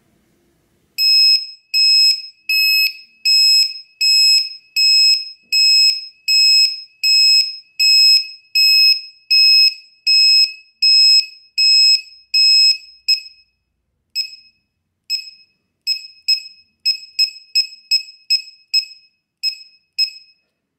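Piezo buzzer of a lipo cell voltage checker on a 3S lithium-polymer pack, sounding its low-voltage alarm with steady, high, two-tone beeps, about three every two seconds. It signals that the cell voltage has reached the alarm setting. Past the middle the beeps turn shorter and unevenly spaced, quickening near the end.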